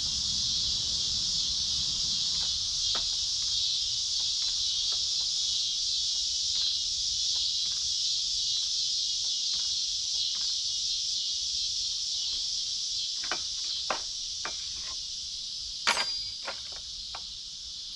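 Steady high-pitched chorus of insects, with scattered light clicks and taps of handling and one sharper click near the end.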